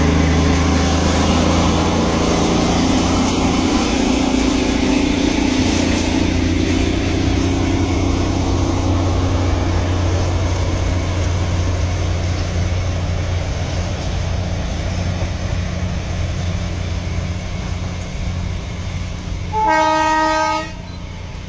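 Steady rumble of a vehicle on the move, with a horn sounding once for about a second near the end.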